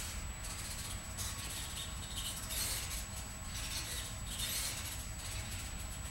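The Reeti robot's small servo motors whirring in short irregular bursts as its eyes, eyelids and head move, over a steady thin high tone and a low room hum.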